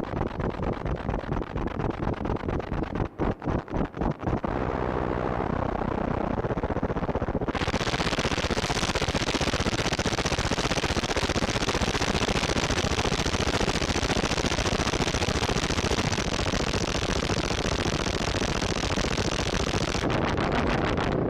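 Qun mk2 drone synthesizer making noise: a rapidly stuttering, chopped rumble for the first four seconds or so, then a steady dense noise drone. About seven seconds in the drone opens up into a bright hiss, and its top is filtered back down near the end.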